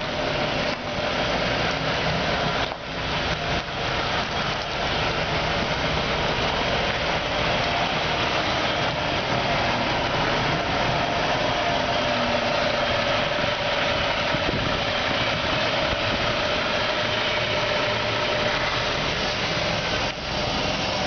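Coach bus's diesel engine running steadily, with a steady whine through the engine noise.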